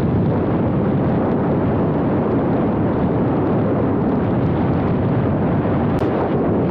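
Steady, loud rumble of road and wind noise from a car driving at speed.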